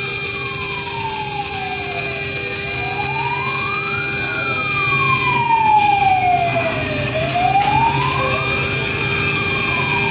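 Micro CNC mill milling a circular pocket in aluminium: a steady whine from the spindle, with a second whine that slowly rises and falls in pitch, about once every five seconds, as the axis stepper motors speed up and slow down while the end mill goes round the circle.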